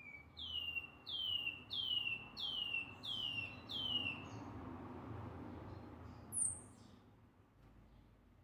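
White-bellied seedeater (chorão) singing: about seven plaintive down-slurred whistles, a little under two a second, then a single thin high note about six seconds in. The bird is coming back into song after its molt.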